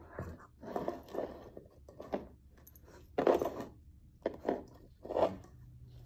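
Great Pyrenees puppy chewing and gnawing on a toy, in irregular crunching bites with short pauses between them.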